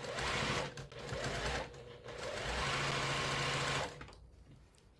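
Sewing machine stitching a seam in three runs, two short and then a longer one of about two seconds, stopping about four seconds in.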